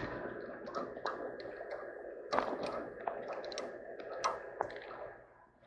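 Scattered light clicks and taps of metal being handled as an old heat pump reversing valve and its copper tubing are worked loose by hand, the sharpest tap about two and a half seconds in.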